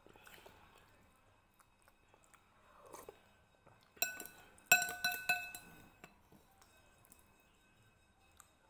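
A metal spoon clinking against a bowl: a quick run of four ringing clinks about four seconds in, each with a clear bell-like tone. Faint mouth sounds of eating come earlier.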